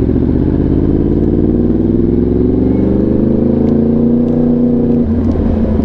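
Yamaha R1's inline-four engine through an SC-Project exhaust, pulling under steady acceleration, its pitch climbing slowly for several seconds. About five seconds in the note changes abruptly, as the revs drop into the next gear.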